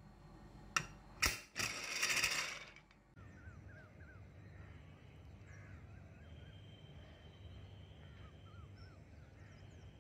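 Two sharp metallic clicks and a short hiss of steam at a Prestige aluminium pressure cooker's vent in the first few seconds. Then faint outdoor background with birds chirping in short repeated notes.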